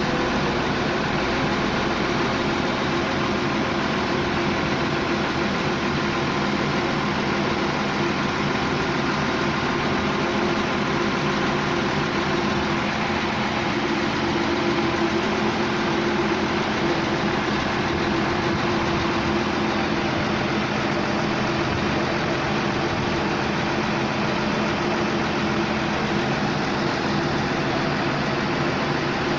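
A 655 CFM portable air compressor's diesel engine running steadily at a constant speed.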